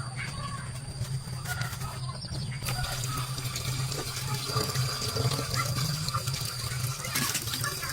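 Running water, with a steady low hum underneath.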